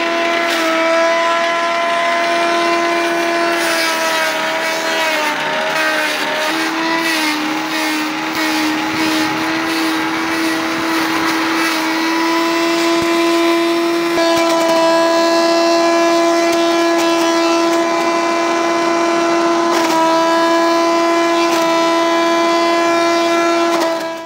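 Hammer-mill shredder running at speed with a steady high whine. About five seconds in, its pitch sags under load and the machine crackles as moringa branches and maize stalks are fed in and chopped, then it picks back up. The sound cuts off suddenly at the end.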